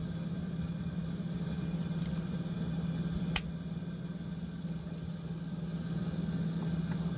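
Steady low hum in the background, with a single sharp click about three and a half seconds in as a CR-type coin-cell battery is pressed into the holder on a digital LED wall clock's circuit board.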